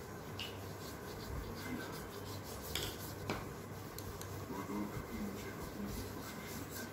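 Paintbrush rubbing paint onto paper in short strokes, a soft scratchy brushing, with two small clicks about three seconds in.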